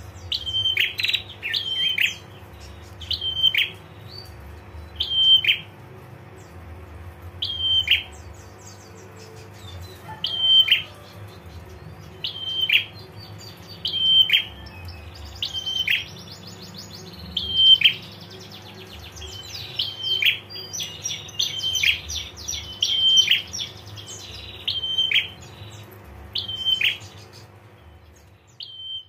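Prenjak (prinia) calling over and over: short sharp notes about every one to two seconds, with rapid chattering trills, the female's 'ngetir' call, in the middle and later stretches. A faint steady hum lies underneath.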